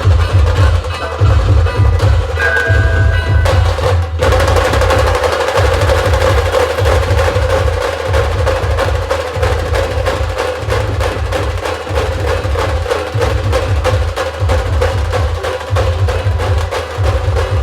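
Khandeshi band dhol-tasha drumming, dense and driving, with steady held melodic tones sounding over the drums. There is a very brief break about four seconds in, after which the playing carries on.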